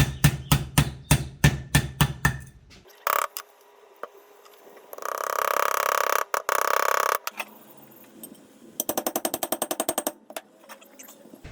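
Bronze hammer striking the inner race of a new differential bearing to drive it on, rapid even blows about five a second for the first three seconds. After it stops comes a steady hiss lasting about two seconds, then a brief run of fast ticks.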